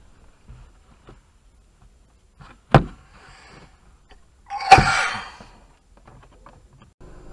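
Two sharp knocks about two seconds apart, the second the loudest and followed by a brief rattling clatter.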